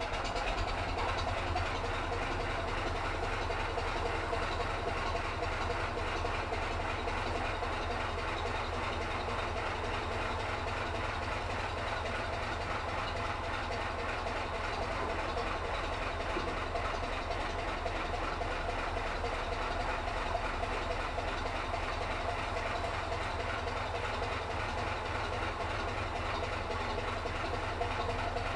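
Narrowboat's diesel engine running at a steady low throb while the boat moves through a low concrete culvert.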